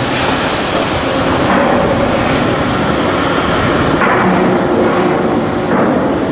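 Steady industrial noise of shipbuilding work with a few knocks of metal on metal.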